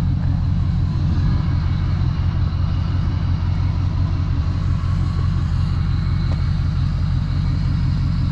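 Vehicle engine running steadily with a deep, even rumble.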